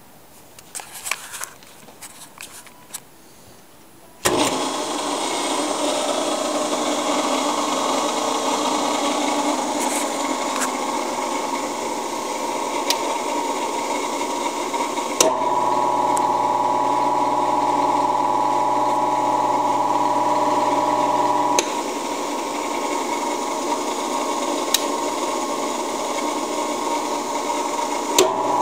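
A rotary phase converter's electric motor starts about four seconds in and runs with a steady electrical hum and whine. About halfway through, a click is followed by a louder hum with a strong whine as the Hobart HCM-300 vertical cutter mixer is switched on; the deeper hum eases a few seconds later, and another click comes near the end as the start button is pressed again.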